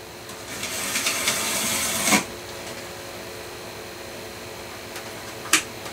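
Small electric model railway locomotive whirring as its motor and gears drive it along a short test track. The whirr grows louder for about two seconds, then stops with a click, and the loco's motor gear now meshes properly with the axle gear. A faint steady hum continues, with one more click near the end.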